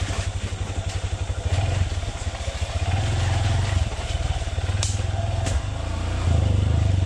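Honda CRF150L's single-cylinder four-stroke engine running at low speed while the bike rides along a muddy trail, the engine getting louder about a second and a half in and again near the end as the throttle opens. Two short sharp knocks about five seconds in.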